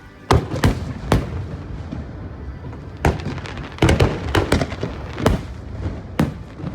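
Aerial firework shells bursting overhead: a string of sharp bangs at irregular intervals, some coming in quick clusters, with a rumbling echo between them.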